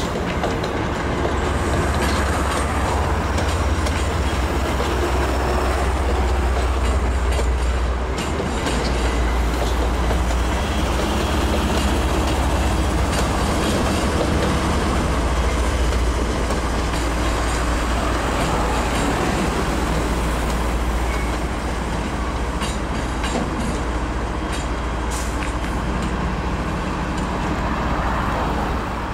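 MBTA commuter rail train of bilevel coaches rolling slowly through a set of switches, giving a steady low rumble with irregular clicks as the wheels pass over rail joints and switch frogs.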